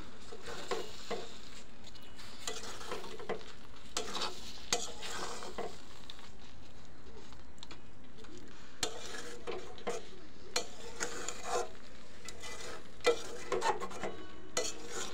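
A metal spatula scraping and stirring thick, sticky jujube pickle in a two-handled metal kadai, in irregular strokes that come in clusters near the start and near the end, over a steady sizzle of the syrup cooking down.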